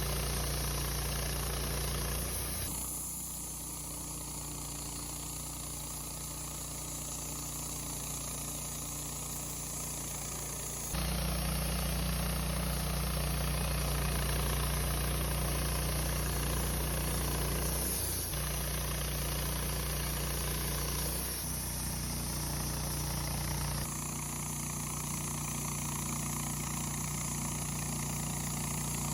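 A band sawmill's engine running steadily with a high whine over it. Its tone and loudness shift several times, louder from about a third of the way in, then changing again near 18, 21 and 24 seconds as the mill's work changes.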